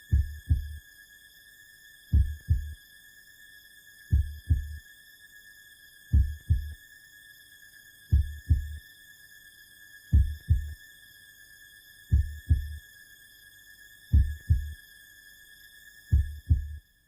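Slow heartbeat sound effect: a low double thump about every two seconds, over a steady high-pitched electronic tone. Both cut off together at the end.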